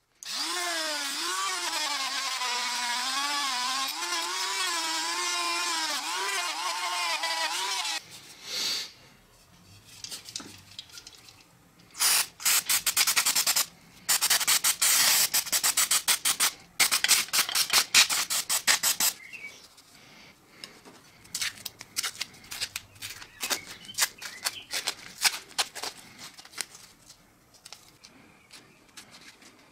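Small electric rotary tool polishing a knife blade at high speed with light pressure, its motor whine wavering in pitch, cutting off after about eight seconds. A few seconds later an aerosol spray can hisses in two long bursts onto the blade, and in the last part the steel is rubbed by hand with abrasive paper in short scratchy strokes.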